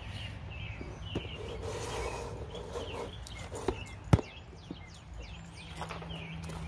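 Small metal clicks and taps as a bolt is fitted by hand into a Craftsman tiller beside its drive belt, with one sharp click about four seconds in. Birds chirp in the background.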